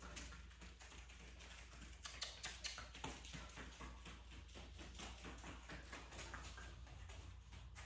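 A dog moving about on foam floor mats while searching, its feet and claws making faint, irregular clicks and taps.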